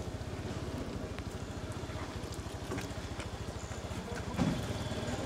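An engine idling steadily, with an even, rapid low pulse. A brief, louder low sound comes about four and a half seconds in.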